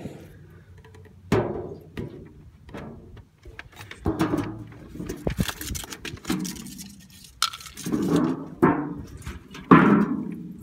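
Cloth rag wiping down the freshly sanded steel door sill in irregular rubbing strokes, some of them sharp and knocking.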